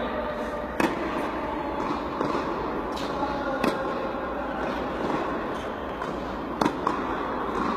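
Tennis racket strings striking a ball during stroke practice: sharp pops at irregular intervals, about five in all, two in quick succession near the end, over a steady background din.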